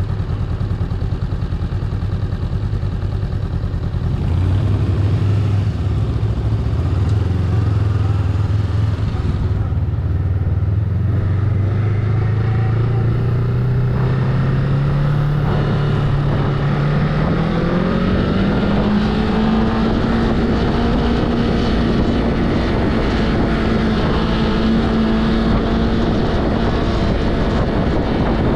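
2019 Honda Rebel motorcycle engine riding under power, heard from the rider's seat. The engine gets louder about four seconds in, its note climbs gradually for several seconds as the bike speeds up, then holds steady.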